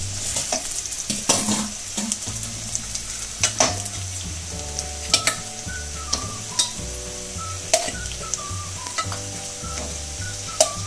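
Sliced onions, dried red chillies and ginger sizzling in hot Dalda in a steel pan, with sharp clinks and knocks of a steel spoon and wooden spatula against the pan as pieces of cooked chicken are dropped in and stirred. Soft background music with a steady bass line comes in about two seconds in.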